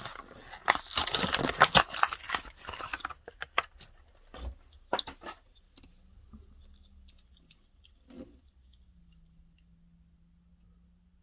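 Hands handling a die-cast toy car and its packaging: about three seconds of dense crinkling and rustling, then a scatter of sharp clicks and taps, and a faint low hum once the handling stops.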